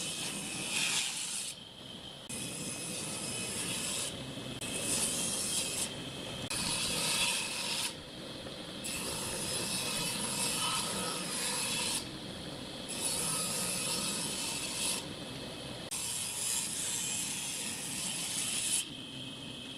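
Table saw cutting wooden boards in a series of passes, with several brief drops in the high cutting noise between them.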